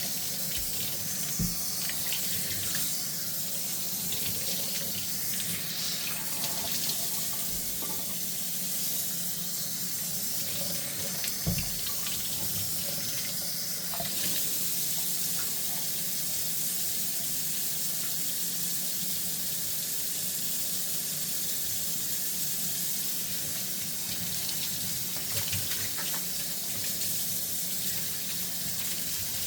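Kitchen tap running steadily into a sink during hand dishwashing, with faint clinks and light knocks of dishes now and then, the clearest about a second and a half in and about eleven and a half seconds in.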